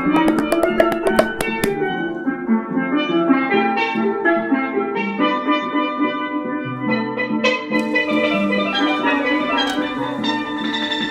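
Instrumental music: a melody of bright pitched notes over drums, with sharp percussion hits in the first couple of seconds.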